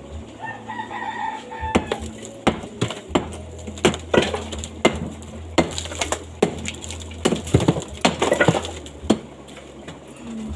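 A rooster crows once, about half a second in. It is followed by a long irregular run of sharp knocks and clatters, the loudest sounds, with a low steady hum under them.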